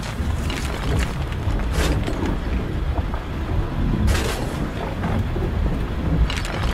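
Soil and gravel pouring from the raised tipper of a radio-controlled Mercedes Arocs 6x6 dump truck, a rain-like hiss that swells into several louder rushes, over a low rumble of wind on the microphone.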